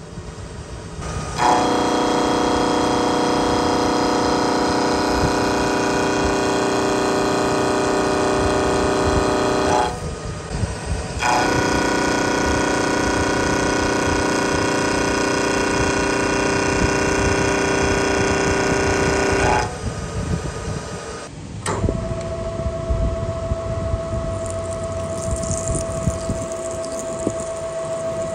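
End mill cutting a steel bar in a milling vise: a loud, steady pitched machining whine in two long passes, each starting and stopping abruptly. After a click a few seconds later comes a quieter single steady tone as the mill runs a second cutter.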